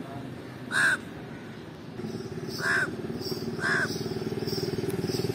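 House crow cawing three times: once about a second in, then twice more a second apart past the middle. Under the later calls a steady engine hum runs from about two seconds in.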